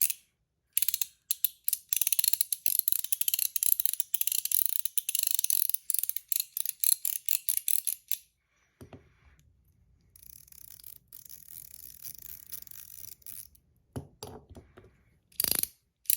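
A fidget coin being worked in the hand: its sliding parts snap back and forth in fast, dense clicking for several seconds, then a softer steady rasp, then a few single clicks near the end.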